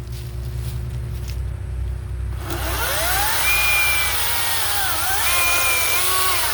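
Ryobi 40-volt brushless cordless chainsaw spinning up about two and a half seconds in with a rising whine, then cutting through wood with a hissing chain. Its pitch sags briefly under load and recovers, then it winds down near the end. A low steady engine rumble runs underneath.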